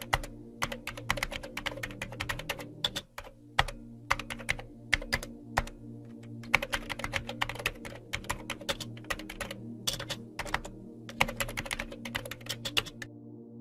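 Computer keyboard typing sound effect playing back: rapid runs of key clicks broken by short pauses, over a steady low hum.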